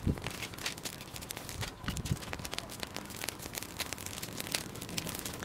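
Small wood campfire of twigs and sticks crackling, with irregular sharp pops and snaps as the kindling catches, and a couple of dull low knocks near the start and about two seconds in.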